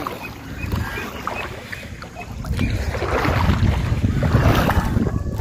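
Wind buffeting the microphone with a low rumble, over water lapping at a muddy shoreline; the rumble grows louder a little under halfway through.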